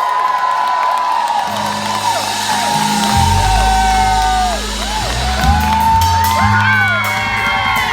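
Concert crowd cheering and whooping, the whoops rising and falling throughout. About a second and a half in, the band comes in underneath with steady low held notes.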